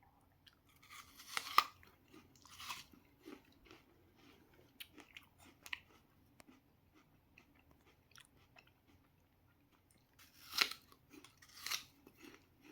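A person chewing and biting food close to the microphone, most likely fresh fruit, with small wet mouth clicks and two spells of louder crunching, one just after the start and one near the end.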